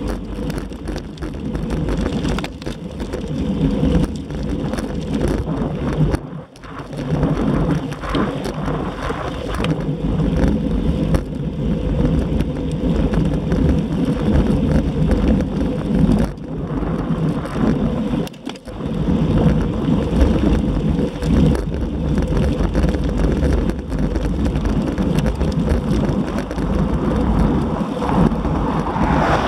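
Wind rumbling and buffeting on the microphone of an action camera on a moving bicycle: a loud, steady rumble with two short lulls, about six and a half and eighteen and a half seconds in.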